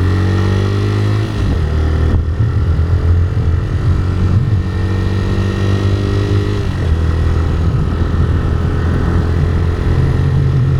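TVS Raider 125's single-cylinder engine pulling the motorcycle along, revs climbing and dropping back at gear changes about one and a half, four and a half and seven seconds in.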